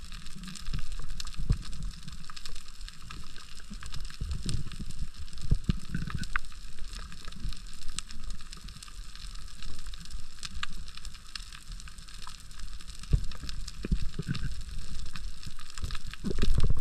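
Underwater reef sound: a steady crackle of countless tiny clicks, typical of snapping shrimp, over an irregular low rumble and thumps of water moving past the submerged microphone, with a stronger thump near the end.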